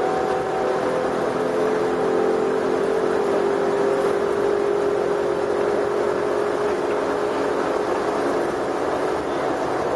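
Airport terminal shuttle train running steadily at speed through a tunnel, heard from inside the car: a constant rushing noise with a steady hum over it.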